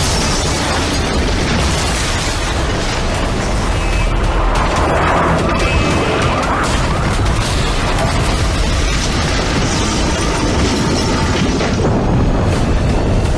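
Dense action-film soundtrack: deep booms and crashing noise layered over music, loud and continuous.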